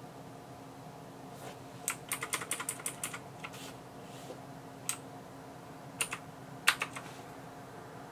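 Keys of a Maxtill Tron G610K mechanical keyboard clacking: a quick run of about ten keystrokes about two seconds in, then a single press, a pair, and a short cluster of presses near the end, the loudest among them.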